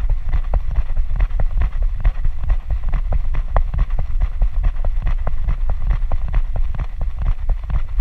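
Cocker spaniel puppy running on a grass and gravel track, heard from a camera strapped to its harness: quick, regular thumps of its strides jolting the harness, over a low rumble of wind on the microphone.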